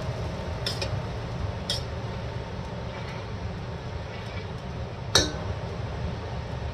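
Metal spatula stirring chicken in a wok of simmering sauce, striking the pan in a few sharp clinks, the loudest about five seconds in, over a steady low rumble.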